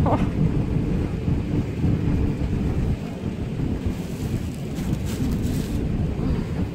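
Airbus A380 cabin noise during the takeoff climb: a steady, loud, low rumble of the engines and airflow heard inside the passenger cabin.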